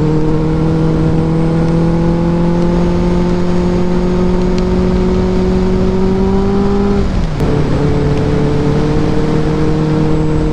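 Benelli TNT 600i inline-four engine running under way, with wind noise on the microphone. The engine note climbs slowly, falls once about seven seconds in, then holds steady at the lower pitch.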